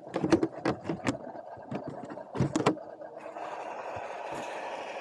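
Radio-controlled scale crawler heard from a camera on its own body: irregular knocks and clatter as it works over the trail, then, a little past halfway, a steady whirr of the electric motor and gears running.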